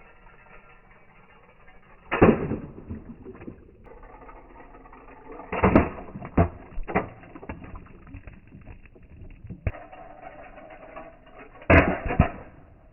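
Toy cars clattering and knocking as they crash and drop, with several loud sudden knocks a few seconds apart over a steady background hiss.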